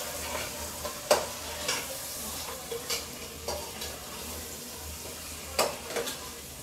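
Chicken pieces sautéing in oil and masala in a pressure cooker, sizzling steadily while a metal ladle stirs them, knocking and scraping against the pot several times, loudest about a second in and again near the end.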